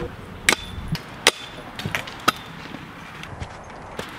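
Sharp clacks of a stunt scooter's wheels and deck knocking on concrete, four or five separate hits about a second apart.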